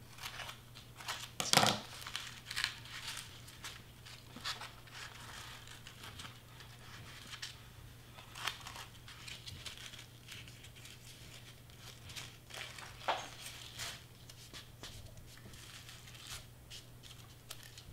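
Crepe streamer paper crinkling and rustling as it is handled, folded and pressed down, in short scattered crackles with the sharpest one about a second and a half in.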